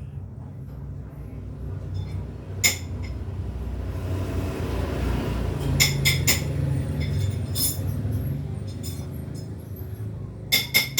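Sharp metal-on-metal clinks at irregular intervals over a low rumbling scrape: steel tyre levers knocking against a wheel rim while a tyre is worked on or off by hand. The clinks come singly, then three close together about six seconds in, and in a quick run near the end.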